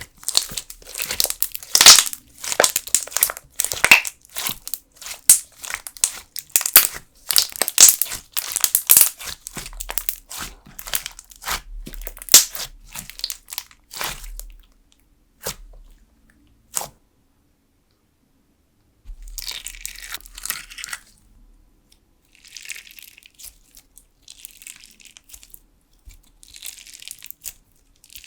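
Jelly slime squeezed and pressed by fingers, giving a dense run of sticky crackles and pops that thins to a few single clicks. After a short pause, a clear slime packed with sugar beads is pressed in four shorter, softer crunchy bursts.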